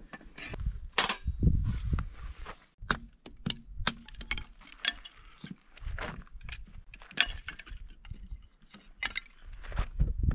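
A hatchet splitting kindling on a wooden chopping block: a run of irregular sharp knocks and wood cracking, the loudest about a second in.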